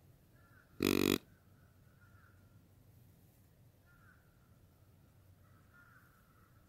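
One loud, short, harsh animal call about a second in, with faint bird calls repeating in the background.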